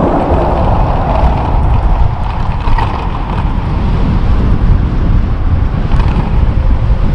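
Wind buffeting the action camera's microphone as an electric tandem bicycle speeds up to about 26 mph: a loud, steady low rumble.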